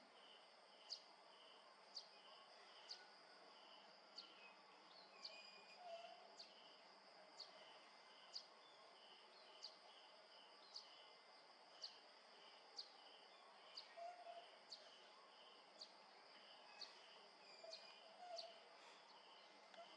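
Faint chorus of insects such as crickets: a steady high drone with an even pulsing of about two to three pulses a second, and a short sharp high chirp about once a second.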